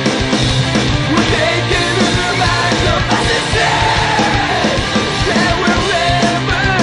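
Loud punk rock music with a shouted, sung lead vocal over distorted guitars and drums.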